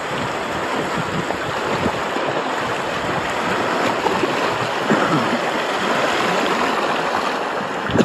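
River water rushing and splashing over rocks in shallow rapids close beside a bamboo raft, a steady, even rush.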